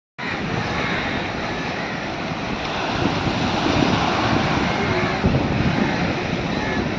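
Sea waves washing and surging, with wind rumbling on the microphone; the sound cuts in suddenly out of silence just after the start.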